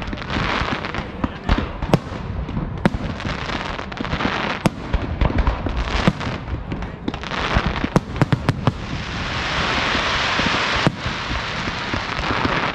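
Aerial firework shells bursting one after another, with sharp bangs throughout. A dense crackling hiss swells in the second half.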